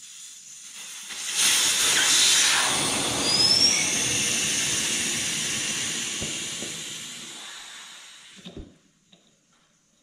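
Air hissing out of a pneumatic tyre valve as the tyre is partly deflated. The hiss starts about a second in, fades slowly as the pressure drops, with a short rising whistle early on, and stops suddenly near the end with a small knock.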